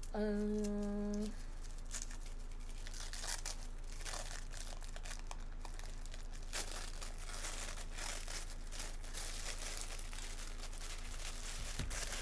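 Wrapping rustling and crinkling as it is pulled off a black spell candle by hand, in irregular rustles that start about two seconds in.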